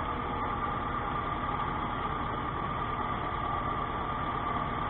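Tractor engine running steadily while pulling an implement through potato rows, heard from inside the cab. A steady high whine sits over the low, even engine rumble.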